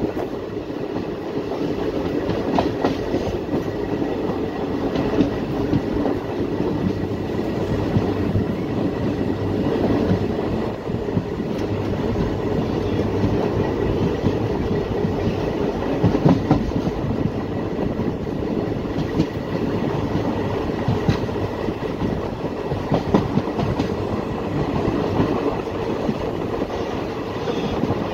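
Passenger train running at speed, heard at an open coach window: a steady rumble of wheels on the rails, with scattered clacks over rail joints.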